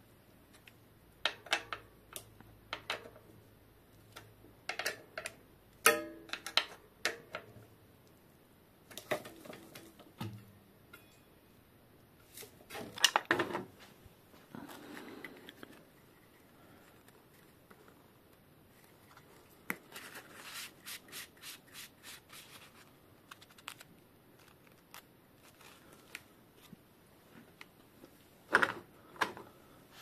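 Hex key clicking and scraping against the mounting bolts of a Shimano MT200 hydraulic disc brake caliper, in scattered taps and short rubbing spells, with a louder clatter about halfway through and again near the end.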